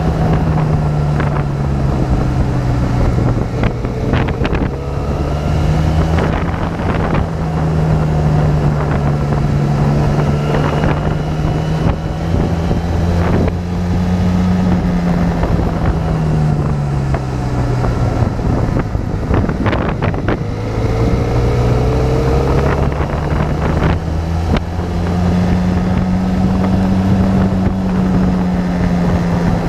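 Motorcycle engine running under way, with wind rushing over the microphone. The engine note drops about three seconds in as the throttle eases, climbs back, drops again a little past halfway and rises once more.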